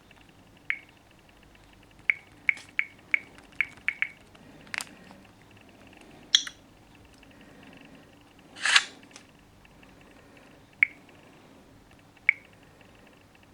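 Short, sharp clicks with a slight pitch, irregularly spaced, with a quick flurry of them in the first few seconds, typical of a smartphone's touchscreen tap sounds. A brief louder rustle comes near the middle.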